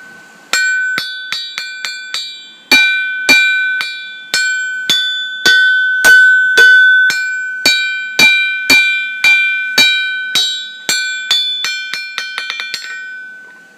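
A hammer striking the face of a weld-repaired Peter Wright anvil, about two blows a second, each blow leaving a clear, bell-like ring that hangs between strikes. A quick run of lighter taps comes near the end. A steady ring like this is the sign of a sound anvil body, and the repaired anvil still has a fantastic ring.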